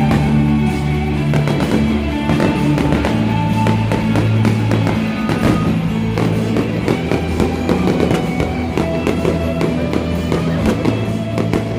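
Music with a steady bass line and melody, with fireworks popping and crackling over it throughout.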